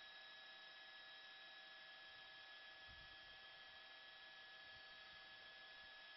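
Near silence: a faint, steady electronic hum and hiss with no other sound.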